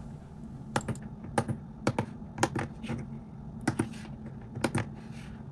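12 mm square tactile push buttons on a perf-board keypad clicking as they are pressed one after another, about two clicks a second and sometimes in quick pairs, over a low steady hum.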